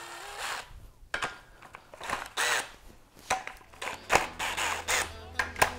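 Cordless drill-driver with a socket on an extension, running in several short bursts as it spins camshaft bearing-cap nuts loose, with light metallic clicks of the socket on the nuts.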